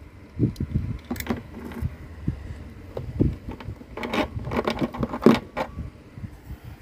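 Hands handling a small plastic mini sewing machine while it is being unthreaded: irregular clicks, taps and low knocks, thickest and loudest from about four to five and a half seconds in.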